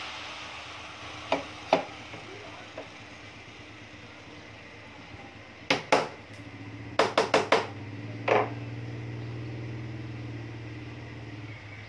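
Sharp knocks and taps on a plywood speaker cabinet as its steel edge trim is fitted: a pair early, a few more past the middle, then a quick run of about five. A low steady hum comes in a little past halfway and fades near the end.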